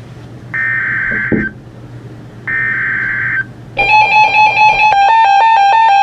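Emergency Alert System SAME header: the last two of its three one-second bursts of digital data screech, a second apart. About four seconds in, an electronic tune of stepping, overlapping tones starts and keeps going.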